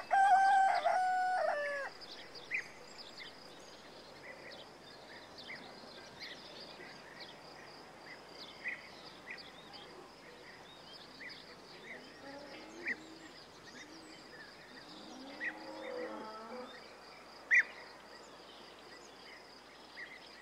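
Cartoon farmyard ambience: a loud, drawn-out call in the first two seconds, then a steady high insect drone with scattered short bird chirps. A chicken clucks around the middle and again a few seconds later, and there is one sharp click near the end.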